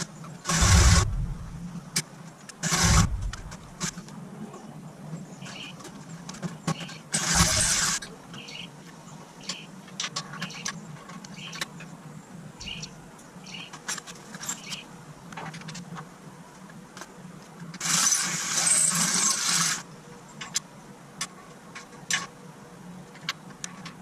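Power drill run in short bursts, drilling out a hole in an aluminum motor mount to take a bigger bolt; four bursts, the longest near the end. Between them come small metal clicks and clinks of the bolt, nut and tools being handled.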